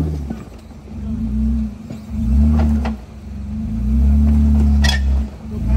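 Two-door Jeep Wrangler JK's engine revving in repeated surges under load as it crawls up a rock ledge, its pitch rising and falling with the throttle. A brief high squeak about five seconds in.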